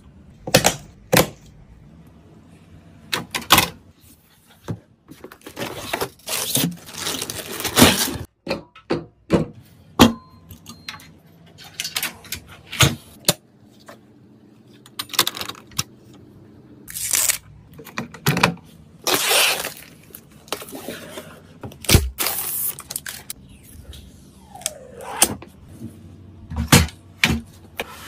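Computer parts and their packaging being handled: an irregular string of sharp clicks and taps, with stretches of plastic and cardboard rustling and one heavier thud later on.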